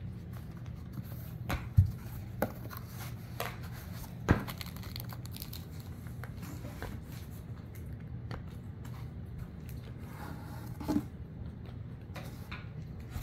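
Cardboard and packaging being handled: scattered crinkling and tearing with a few sharp knocks, the loudest about two seconds in and another about four seconds in.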